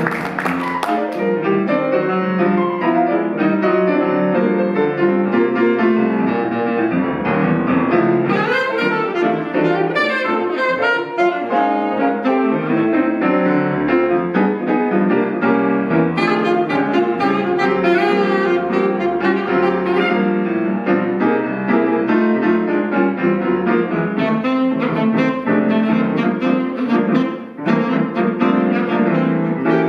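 Alto saxophone and piano playing jazz together in a steady stream of quick notes, with a brief dip about three-quarters of the way through.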